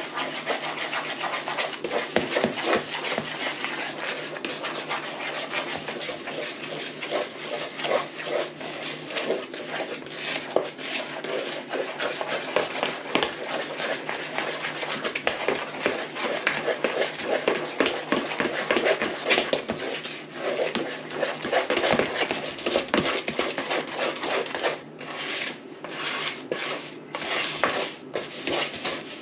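Spoon stirring thick brownie batter by hand in a mixing bowl: continuous scraping against the bowl, with many quick knocks of the spoon.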